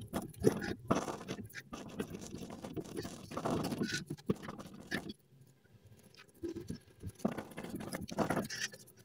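Resin-wet paintbrush dabbing and scrubbing fiberglass mat down onto a mold in irregular strokes, with a pause of about a second about halfway through.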